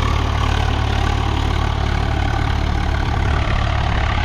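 Swaraj 855 tractor's three-cylinder diesel engine running steadily, a strong, even low drone.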